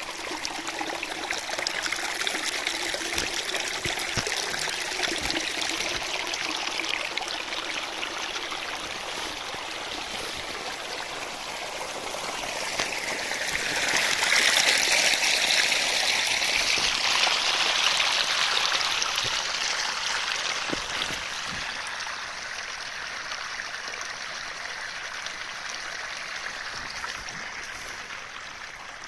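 Water running in a stream, a steady rushing that swells louder for several seconds in the middle and then eases off.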